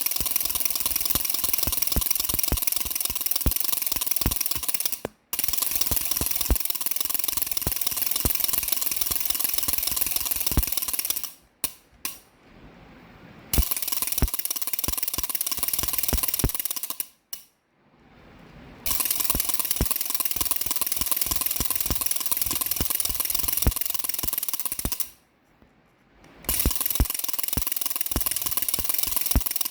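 Baby rattle shaken fast and continuously, a dense rapid clatter that stops briefly four times.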